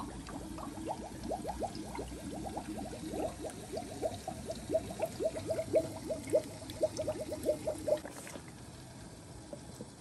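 Coolant gurgling and bubbling as it is poured from a squeeze bottle into a water-cooled PC's reservoir: a quick, uneven run of short bloops that stops about eight seconds in.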